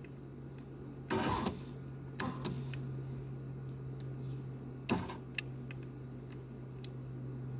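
Ford F-250 driver's power window motor running with a steady hum in auto-down mode, its relay holding it on after the switch is released. A few short clicks and a rustle sound over it, with crickets chirping steadily behind.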